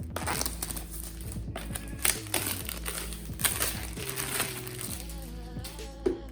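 Packaging crinkling and rustling as it is handled and pulled open, with a few sharper crackles, over background music.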